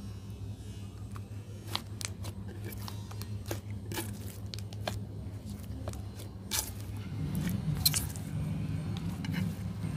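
Clay slime being stretched, folded and pulled apart by hand, giving sticky clicks and small crackling pops, busier from about seven seconds in, over a steady low hum.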